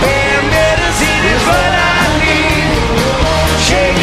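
A live rock band playing loud, with a sung lead vocal over the band and cymbal crashes.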